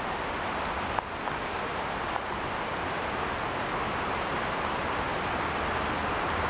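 Steady rushing of a creek swollen by heavy rain, with a few light clicks about a second in and near two seconds.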